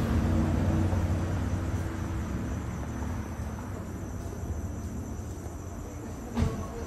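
Crickets chirping steadily over a low engine hum that fades over the first few seconds. A single sharp click near the end.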